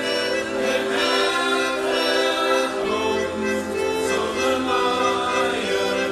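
Background music with long, sustained chords.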